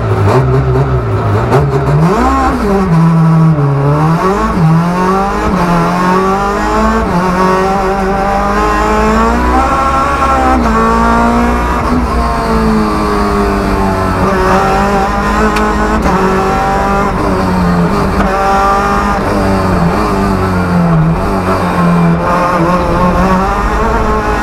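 Rally car engine heard from inside the stripped, caged cabin, accelerating hard and shifting gear, its note climbing and dropping again and again. The first sharp climb comes about two seconds in.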